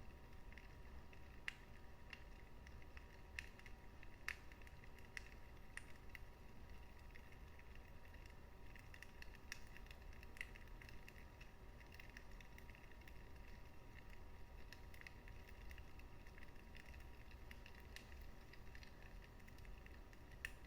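Faint crackling of a wood fire in a fireplace: small pops and snaps at irregular moments over a low, steady rumble.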